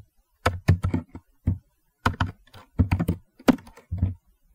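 Computer keyboard being typed on: sharp key clicks in short, irregular bursts of a few strokes each, with brief pauses between them.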